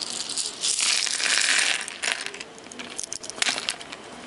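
A cloth towel rubbing wet plastic mixer knobs and fader caps dry, a loud rustling hiss about a second in, followed by light scattered clicks and clatter as the plastic knobs are tipped out onto the bench.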